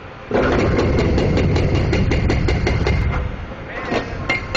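Demolition machinery breaking up a parkade: a sudden run of rapid knocking and crunching, about five blows a second over a heavy engine rumble, starting about a third of a second in and lasting about three seconds, then easing off with a few more knocks near the end.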